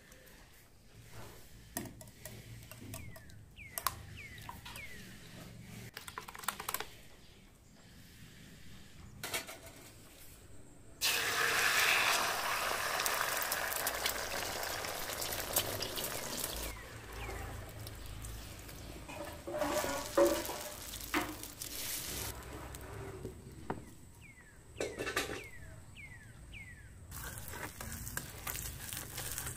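Egg omelette batter frying in hot oil in a steel pan: a loud sizzle starts suddenly about a third of the way in and eases off after a few seconds. It comes back near the end as a spatula works the omelette. Before the sizzle there are a few light clicks and taps as salt goes into the egg mixture in a glass bowl.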